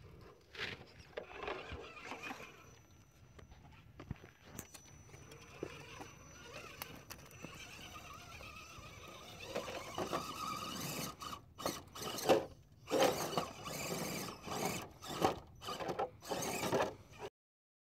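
Scale RC rock crawler's electric motor and gearbox whining in short bursts of throttle, with its tires scrabbling and knocking on rock. The bursts come louder and closer together in the second half, then cut off suddenly near the end.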